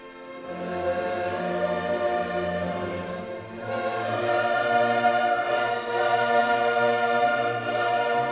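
Choral and orchestral music with long held chords, swelling louder about three and a half seconds in.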